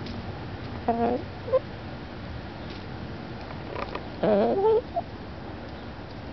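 Hens giving two short pitched calls: a brief one dropping in pitch about a second in, and a longer, wavering call just past the four-second mark.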